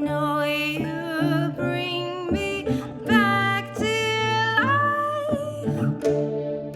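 Music: a woman's wordless singing, held notes with glides between them, over a plucked mandolin.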